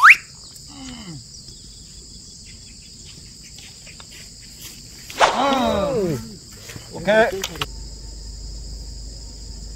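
Insects chirring steadily in a high, even band. A drawn-out voiced exclamation with falling pitch comes about five seconds in, and a shorter one about two seconds later.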